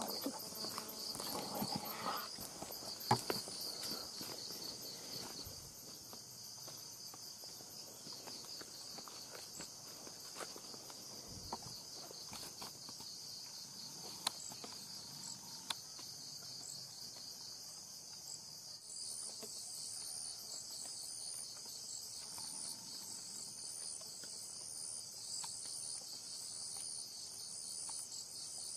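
Dense chorus of insects, a steady high-pitched chirring. From about nineteen seconds in, another insect joins with a pulsing call repeating about once a second. In the first few seconds there are rustling footsteps in the undergrowth and a few sharp clicks.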